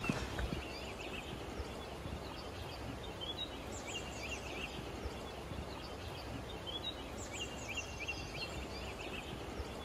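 A small songbird sings two short phrases of quick repeated high notes, about three seconds apart, over a steady outdoor hiss.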